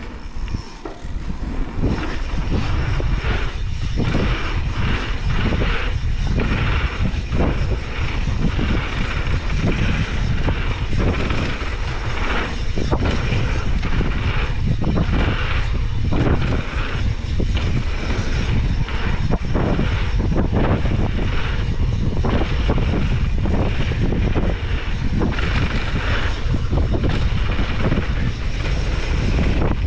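Mountain bike riding a dirt trail, heard from a camera on the bike or rider: a steady wind rumble on the microphone over tyres rolling on dirt, with frequent knocks and rattles as the bike hits bumps.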